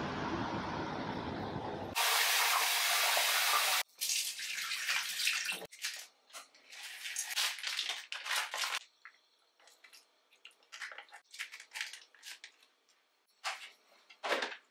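Street traffic noise for about two seconds, then water running from a tap in a loud steady stream. After that come on-and-off splashes and scattered small clatters, as of something being rinsed under the tap.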